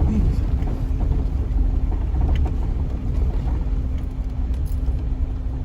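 Jeep Wrangler driving up a dirt trail: a steady low rumble of engine and tyres on the dirt road, with a steady faint hum and a few light ticks and knocks.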